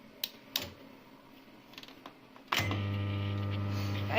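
Two sharp clicks, then a microwave oven starts running about two and a half seconds in: a steady, loud electrical hum that switches on abruptly as it heats the noodles.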